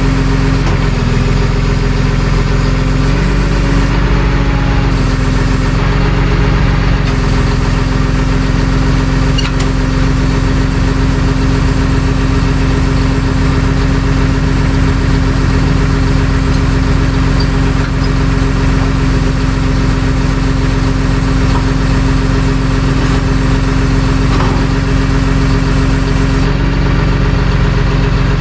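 Tow truck's engine running steadily, with a constant hum.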